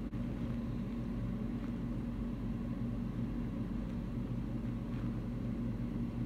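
Steady low hum with faint hiss, even throughout, with no distinct event.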